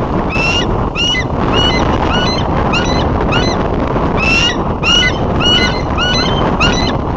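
Bald eagle giving a rapid series of high, piping chatter calls, about two notes a second, the territorial calling at intruding eagles flying past the nest. Under the calls runs a steady rush of wind noise on the nest-cam microphone.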